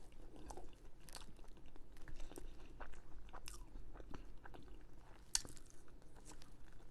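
A person chewing and biting food close to the microphone: irregular soft clicks and small crunches, with one sharper crunch near the end.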